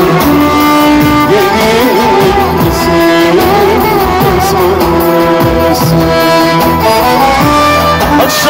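Loud live band music amplified through PA loudspeakers: violin and electronic keyboard playing steady held melody notes over a rhythmic bass accompaniment, with some singing.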